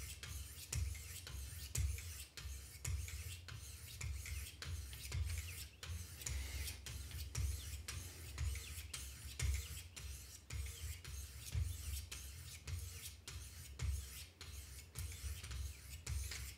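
400-grit diamond stones of a Wicked Edge guided sharpener stroking along a knife blade: a steady run of short rasping strokes, worked alternately on both sides of the edge.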